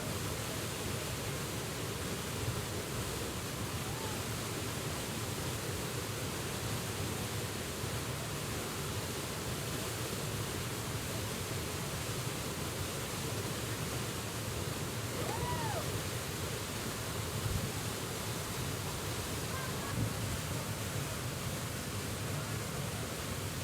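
Steady rushing roar of a waterfall in heavy flow after rain. About two-thirds of the way through comes one faint short whistle.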